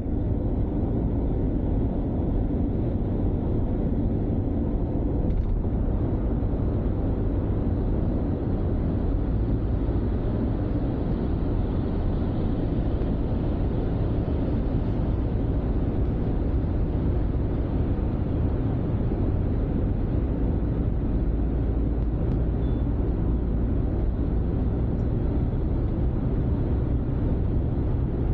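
Steady low rumble of a car driving on an expressway: tyre and engine noise with no change in speed.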